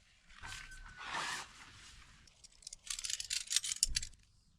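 Scraping and rustling, with a dense run of quick crackles near the end.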